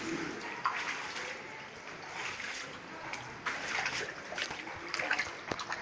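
Floodwater splashing and trickling, in irregular small splashes with a few sharp drips.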